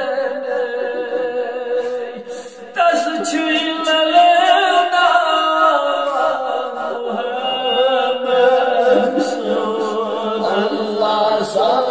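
A man chanting a durood, a devotional blessing on the Prophet, unaccompanied, in long melismatic held notes. A new, louder and higher phrase starts about three seconds in.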